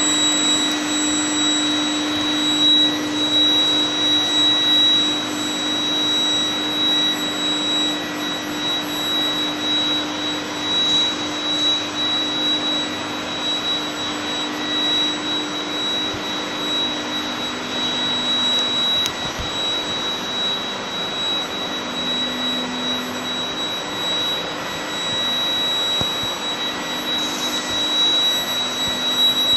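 Steady roar of factory machinery from an electric tempering furnace line, with a constant high-pitched whine and a low hum.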